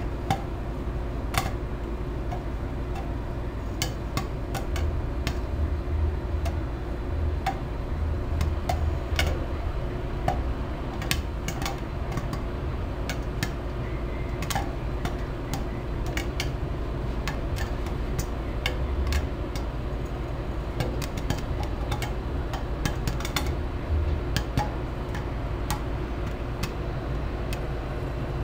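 Popcorn kernels popping in a covered pot with a glass lid: scattered sharp pops at an irregular pace, sometimes several a second, over a steady low rumble. The pot is nearly full, late in the batch.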